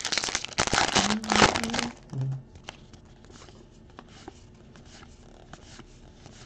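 A trading-card pack wrapper being torn open and crinkled for about two seconds, then the cards being slid through the hand with faint soft clicks and rustles.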